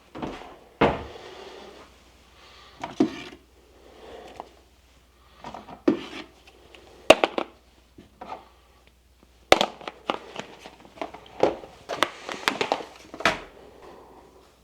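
Kitchen prep sounds: irregular knocks and clatter of utensils and dishes being set down and handled, with brief scraping and rustling between them.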